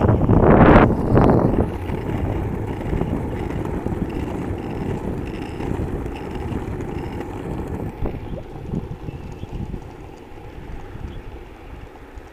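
Ripstick casterboard's wheels rolling on asphalt, with wind buffeting the microphone. A loud rush of wind in the first second or two, then a steady rumble that gradually fades.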